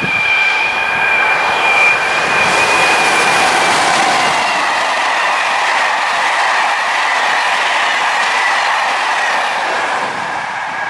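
A BB 26000 Sybic electric locomotive and its Corail coaches passing close by at speed: a loud, steady rush of wheels on rail with a steady high-pitched ringing tone over it, easing a little near the end as the last coach goes by.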